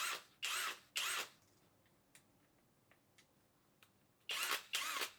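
Flex 24V cordless drill running unloaded in short trigger squeezes, five brief bursts. Each whines up in pitch and winds back down: three in quick succession, then two more near the end.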